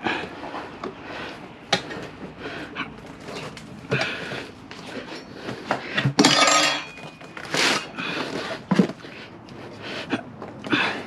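Hand tools clanking and knocking against a motorcycle wheel rim as a tire is levered onto it, in irregular metallic knocks with a longer grating rub about six seconds in.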